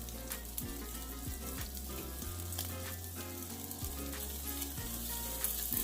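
Pork barbecue and chicken sizzling as they cook on the heat, a steady hiss with scattered pops and crackles.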